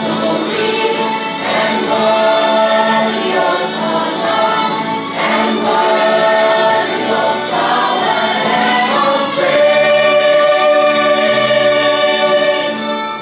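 Small mixed choir of young men and women singing a gospel hymn through microphones, moving through sustained chords and holding a long chord for the last few seconds.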